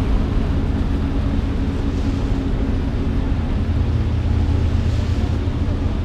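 A sportfishing boat's engines running steadily, a low, even drone while the propellers churn the water.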